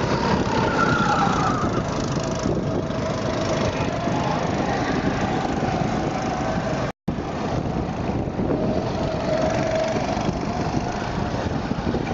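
Go-kart engines running as several karts lap a track, their pitch rising and falling as they speed up and pass. The sound cuts out for a moment about seven seconds in.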